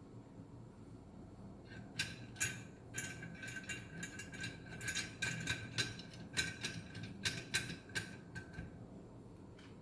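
Ratchet wrench clicking in quick back-and-forth strokes as bolts are tightened. It starts about two seconds in and stops shortly before the end.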